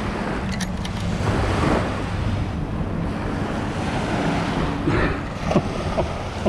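Sand hissing and rattling through a large metal-detecting sand scoop (White's HexScoop) being shaken, loudest in the first two seconds, over steady wind noise on the microphone and surf. A few light clicks come near the end.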